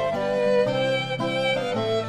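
Instrumental background music: a melody of held notes over a lower accompaniment, the notes changing about twice a second.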